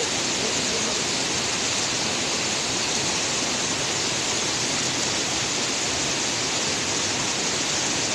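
Steady rush of fast-flowing water, an unbroken hiss with no let-up.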